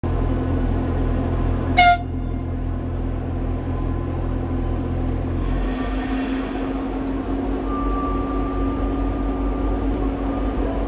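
Pesa 630M diesel multiple unit standing at the platform with its engines running in a steady low drone. It gives one short horn toot about two seconds in. About halfway through, the low engine hum changes.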